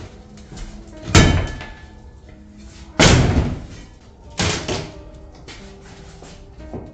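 Painted wooden tongue-and-groove ceiling boards being bashed with a shovel and forced up by hand: three heavy bangs, about a second and a half apart, each trailing off in a rattling clatter. Background music plays underneath.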